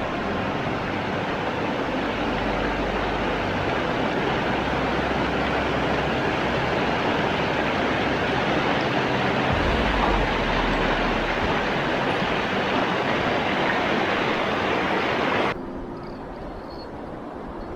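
Rushing water of river rapids: a steady, dense wash of noise with a low rumble underneath, which drops abruptly to a quieter flow about fifteen seconds in.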